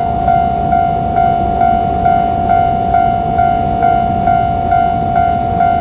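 Japanese level-crossing warning bell ringing: an electronic ding repeating a little over twice a second over a low rumble, the signal that a train is approaching and the crossing is closed.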